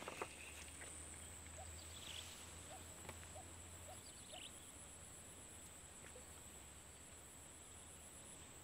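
Near silence: faint marsh ambience with a steady high-pitched tone and a few soft bird chirps in the first half.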